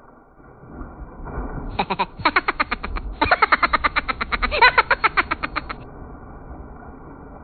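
A person's body hitting the water of a swimming pool with a splash, then about four seconds of loud, rapid, pulsing laughter.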